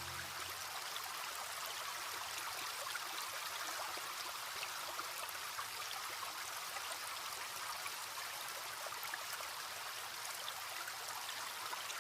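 Small stream trickling steadily, a soft watery hiss flecked with little droplet splashes.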